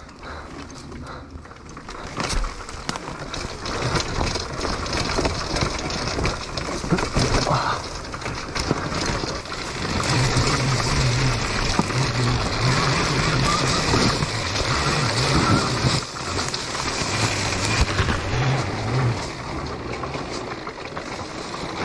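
Homemade electric Honda CR dirt bike being ridden over a leaf-covered forest trail: a continuous rattling, rushing ride noise of tyres, chassis and wind, growing louder over the first few seconds as the bike picks up speed.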